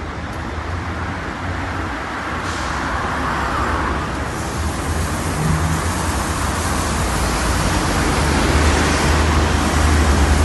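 Street traffic: a city bus and then a truck passing, with a steady low engine hum and tyre noise on wet asphalt, growing gradually louder toward the end as the truck comes closer.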